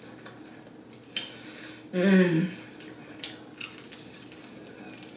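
Close-miked eating of chicken wings: scattered crisp mouth clicks and chewing, with a sharp click a little over a second in and a short hummed "mm" about two seconds in.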